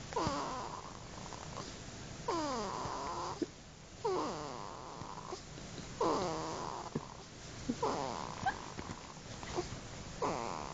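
Baby snoring in its sleep: about six snoring breaths, roughly one every two seconds, each a wheezy tone sliding down in pitch.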